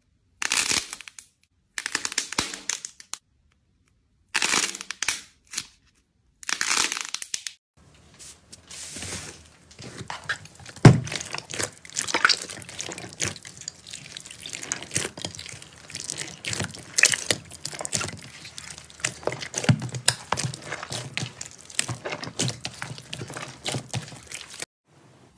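A squishy chick toy squeezed by hand in four short bursts with silence between them. Then thick clear slime is kneaded and pressed by hand, giving a dense run of crackling and popping that stops just before the end.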